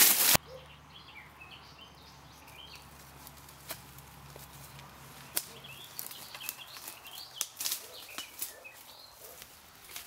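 Small birds chirping in woodland, with scattered faint clicks and snaps. A loud crackling rush of noise cuts off a moment in, and a faint low hum runs through the first half.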